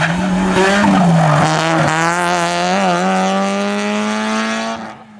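Citroën Saxo rally car engine under hard throttle. Its pitch dips briefly twice as the driver lifts or shifts, then climbs steadily as the car accelerates away. The sound cuts off abruptly near the end.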